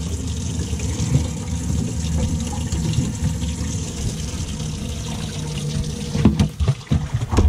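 Boat live well being filled by its pump: a steady rush of water pouring into the well over a faint steady hum. Near the end a few knocks as a striped bass is put into the well.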